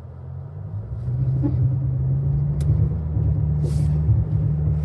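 Toyota Tacoma pickup engine working under load on a steep off-road climb, its note rising and getting louder about a second in, then holding steady.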